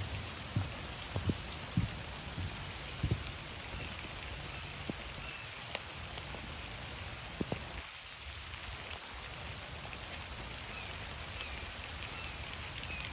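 Steady rain falling, with footsteps on a trail about every 0.6 seconds for the first few seconds and a few scattered soft thumps later.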